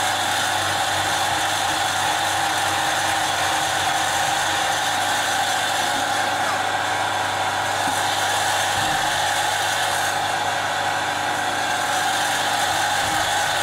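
Electric motor of a car lift running steadily as the car is raised.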